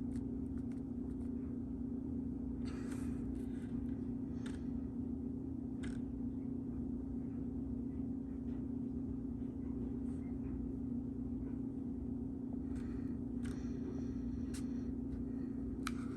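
A steady low hum with scattered soft rustles and taps as a cardboard box and its paper leaflets are handled.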